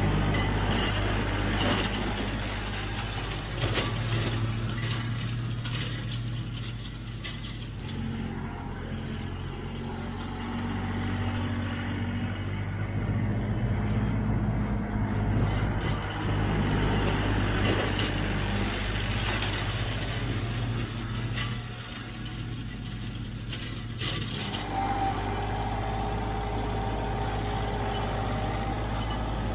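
Kioti CK3510SE compact tractor's diesel engine running under load while driving a flail mower through grass, its note shifting a few times. A steady whine joins in late on.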